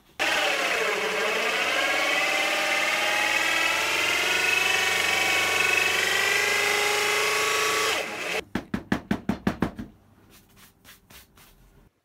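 Corded electric drill spinning a hole saw through pallet wood, its motor pitch sagging about a second in as the saw bites, then running steadily until it stops about eight seconds in. Then a quick run of about ten sharp knocks, followed by a few faint taps.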